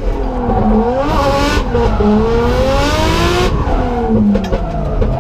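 Turbocharged RB25 straight-six in a Nissan S14 drift car, revving hard through a drift, its pitch climbing and dropping several times with one long climb in the middle. There are bursts of tyre squeal along with it.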